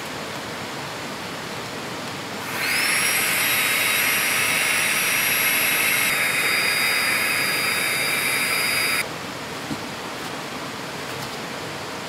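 Small battery-powered air pump spinning up with a rising whine, running steadily for about six seconds, then cutting off suddenly, most likely inflating a sleeping pad. A river's steady rush continues underneath.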